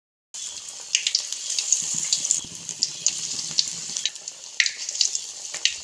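Banana-flower vadai patties deep-frying in hot oil: a steady sizzle with frequent sharp crackles and pops, starting after a split second of silence.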